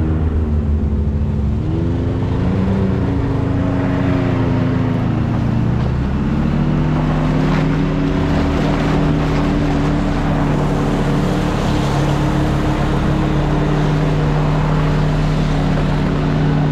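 Side-by-side UTV engine running under way on a trail. Its note dips twice and climbs back, then holds steady through the second half.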